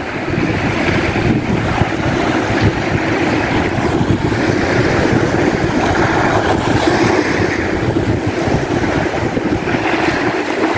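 Wind buffeting the microphone over the steady wash of small surf waves breaking on the shore.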